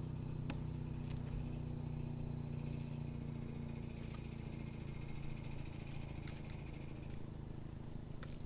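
Wood chipper's engine running steadily as a low hum, with a few sharp clicks and a fainter higher rattle through the middle.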